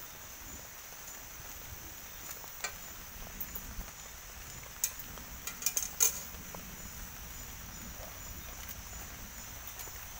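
Steady chorus of insects trilling without a break, with a few sharp clicks over it, several bunched together around the middle.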